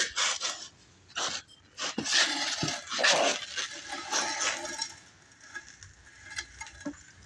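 Clinks, knocks and scraping of metal car parts and tools being handled, a run of sharp strikes with some ringing in the first five seconds, then quieter.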